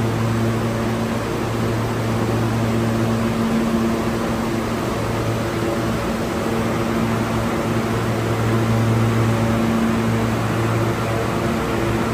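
Steady machine hum over an even rushing noise in a subway station, with no change in pitch, as of equipment or ventilation running.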